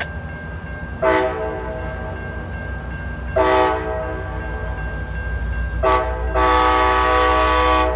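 Locomotive air horn sounding four blasts in the long-long-short-long pattern used for a grade crossing, the last blast held the longest. A steady low train rumble runs underneath.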